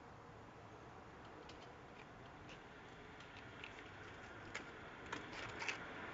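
Faint, irregular small clicks and ticks over a low hiss, coming more often near the end with a few sharper ones.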